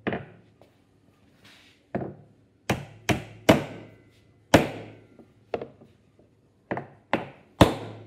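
Hammer driving nails into the side of a glued plywood box: about ten sharp strikes in uneven groups, with short pauses between them.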